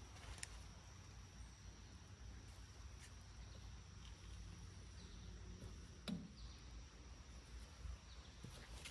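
Near silence: a faint low rumble with a thin, steady high-pitched whine and a few small clicks, and one slightly louder tap about six seconds in.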